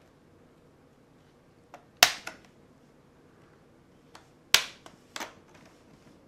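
Plastic snap clips of an Acer Aspire One laptop's screen bezel popping loose as a plastic pry tool works along the seams. There are two loud, sharp snaps about two and a half seconds apart, each with a few smaller clicks around it.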